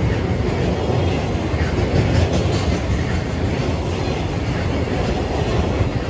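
Container flat wagons of a freight train rolling past at close range: a steady, loud noise of steel wheels running on the rails.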